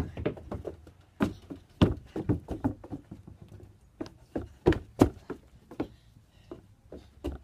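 A tennis ball being kicked and bouncing on hard ground: a string of irregular sharp knocks, a few of them much louder than the rest, over a low steady rumble.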